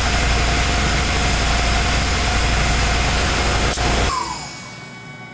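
Tormach PCNC mill running an engraving pass: a steady hiss from the air/coolant nozzles over the spindle's hum, with one sharp click about four seconds in. The hiss then cuts off and the spindle winds down with a short falling whine, leaving only a faint machine hum.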